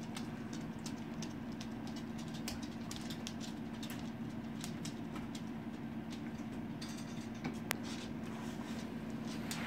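Dogs' claws clicking on a bare wooden floor as they walk about, many small irregular ticks, over a steady low hum.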